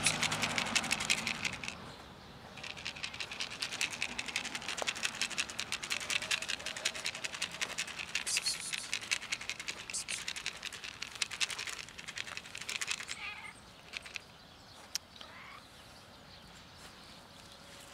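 Food pieces rattling in a clear plastic lidded container as it is shaken out, a fast, dense crackle with a short break about 2 seconds in, stopping about 13 seconds in. It is followed by a brief falling animal cry.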